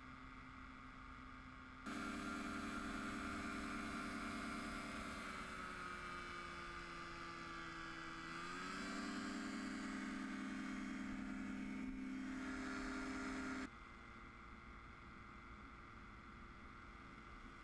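A paramotor trike's propeller engine runs steadily in flight. Its pitch sags slowly and then comes back up about halfway through. The engine sound cuts in abruptly about two seconds in and cuts out just as abruptly a few seconds before the end, leaving only a faint hum.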